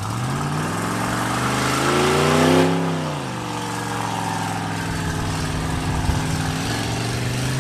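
Pickup truck engine revving hard under load as it drives through the dirt in four-wheel drive: the pitch climbs for nearly three seconds, drops sharply, holds steady, then climbs again near the end.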